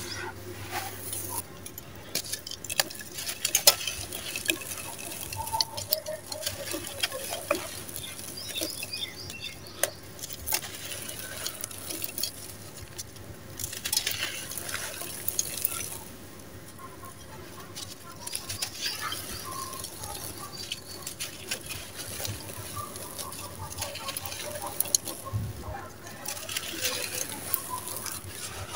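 Dry sand-cement chunks crushed and crumbled by hand: gritty crunching and crackling with many small irregular clicks as grains trickle and patter down.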